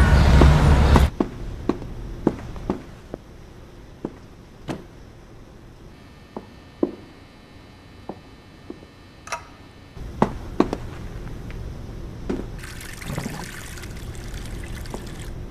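Water sounds: a loud splash or gush at the start, then scattered single drips or plops, and a steady pouring hiss near the end.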